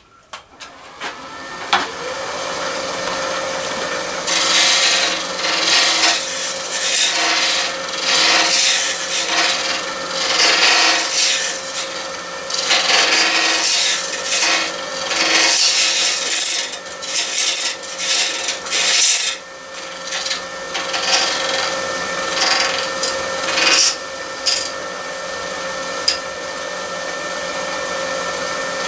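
Robust wood lathe spinning up in the first couple of seconds, then running with a steady hum while a turning tool cuts a PVC pipe coupling in repeated passes, each pass a scraping hiss as plastic ribbons come off. The passes round over and smooth the coupling's edge, and they get lighter in the last several seconds.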